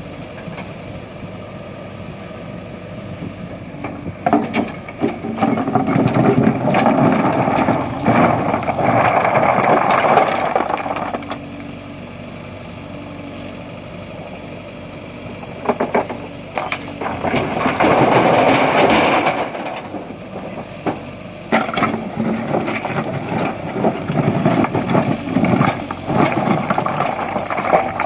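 JCB backhoe loader's diesel engine running and revving up in three long spells as it works the bucket, with sharp knocks and clatter of stone.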